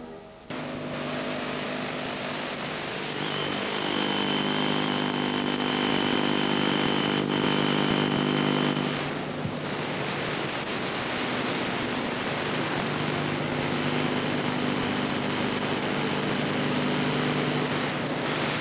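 Steady hiss with a low buzzing hum that cuts in abruptly, and a faint high whine through the middle: the noise of a blank, signal-less stretch of videotape.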